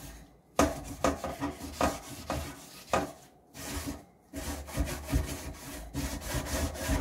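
Scouring sponge scrubbed back and forth over a wet wire oven rack, a run of scraping strokes broken by a few short pauses.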